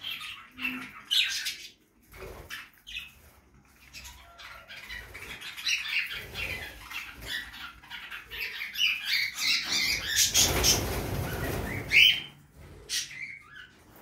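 A flock of budgerigars chirping and chattering, with many short high calls. Near the end comes a rush of wing flapping lasting a couple of seconds.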